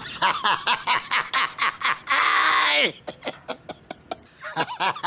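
A man laughing loudly and heartily in quick rhythmic ha-ha bursts. About two seconds in comes a long shrill shriek of laughter that drops in pitch as it ends. The laughter then goes softer for a moment before breaking out loudly again near the end.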